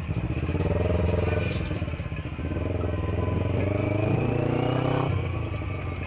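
Motorcycle engine revving as the bike pulls ahead in traffic. Its pitch climbs, eases off about two seconds in, climbs again, then drops back about five seconds in.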